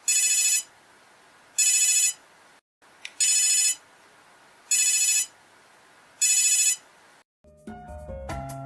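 Electronic mobile phone ringtone: five short, high-pitched warbling trills, one about every second and a half. A different, melodic ringtone of mallet-like notes starts near the end.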